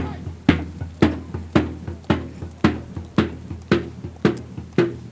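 Military bass drum beating a steady march time, about two strikes a second.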